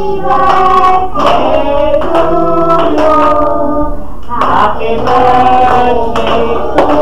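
A group of people singing together, with long held notes.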